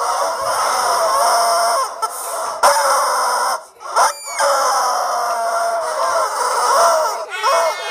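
Several squeezable rubber screaming-chicken toys squawking together: long, drawn-out, overlapping shrieks that break off briefly about two seconds in and again about four seconds in.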